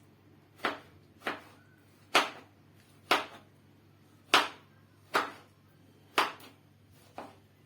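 Knife chopping on a cutting board: eight separate, unhurried strokes, roughly one a second at an uneven pace.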